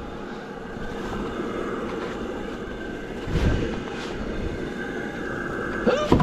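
Outdoor wood-fired water boiler running with a steady mechanical drone and a faint constant whine, with a single thump about three and a half seconds in.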